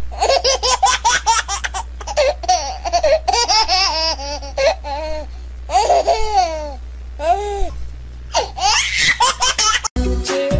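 High-pitched laughter in quick repeated bursts, with a few sharp clicks between them. Near the end it cuts to music.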